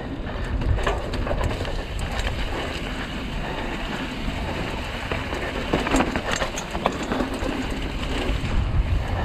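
Mongoose Ledge X1 mountain bike riding fast down a dirt trail: steady rumble of wind on the mic and tyres on dirt, with scattered clicks and rattles from the bike over bumps.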